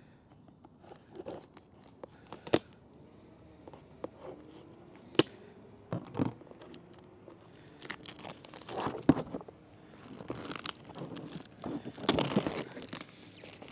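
Cardboard product box being opened and its packaging handled: a few scattered sharp snaps and clicks, then crinkling and tearing that builds in the second half, loudest near the end.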